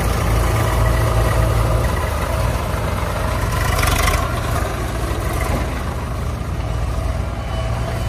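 Heavy diesel engines of a backhoe loader and tractors running steadily at low revs, with a brief rushing noise about four seconds in.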